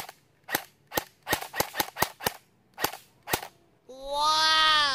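Airsoft rifle firing single shots on semi-auto, about ten sharp snaps at an uneven pace. About four seconds in a drawn-out pitched sound follows and falls in pitch at its end.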